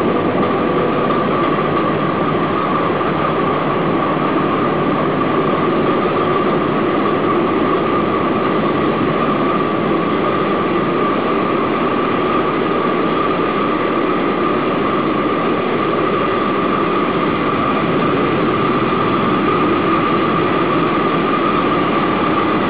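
SEMT Pielstick 16 PC 2.6 medium-speed 16-cylinder diesel main engines running, heard close up in the engine room as a loud, steady, unchanging din with a steady high-pitched whine over it.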